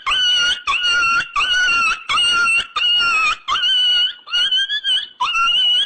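A comedy sound effect of high-pitched squeals repeated about eight times, a little over one a second. Each squeal scoops quickly upward and then holds its pitch for about half a second.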